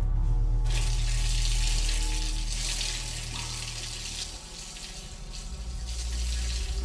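Water pouring and spraying down in a steady hissing rush, starting suddenly about a second in, over a low steady drone.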